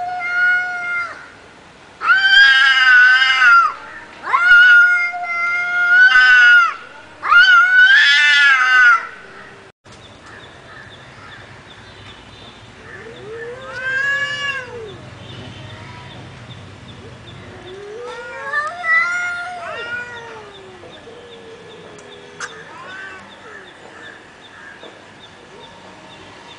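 Two cats caterwauling in a standoff: long, wavering yowls, loud and close together for the first nine seconds or so, then quieter drawn-out yowls every few seconds. This is angry, threatening yowling between two cats squaring up to fight.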